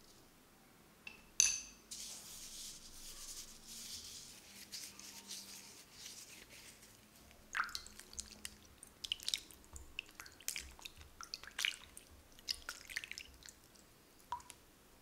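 Lemons being washed by hand in a glass bowl of water. A sharp clink against the glass comes about a second and a half in, then a soft hiss for a few seconds, then irregular splashes and drips as the fruit is rubbed and lifted in the water.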